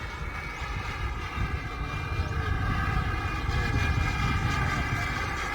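Turbine engine of an Avanti RC model jet whining steadily in flight, several steady high tones over a low rumble, growing a little louder a few seconds in.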